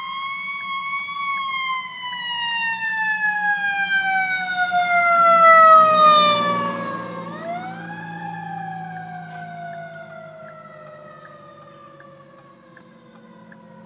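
Fire engine siren wailing: a rise in pitch, then a long slow fall, winding up again about seven seconds in and falling away once more. It is loudest a little past halfway and fades toward the end.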